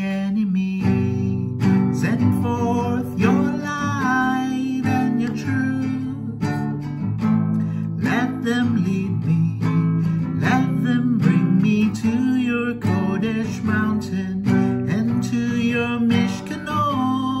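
Acoustic guitar strummed, accompanying a worship song through its chord changes.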